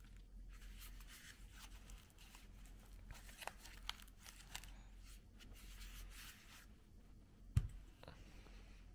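Rustling and crinkling handling sounds with a few sharp clicks, and one low thump about three quarters of the way through.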